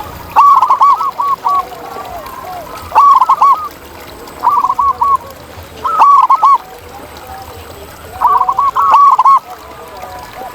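Zebra dove cooing: short phrases of quick, rolling notes, repeated about every two seconds, with fainter, lower calls beneath.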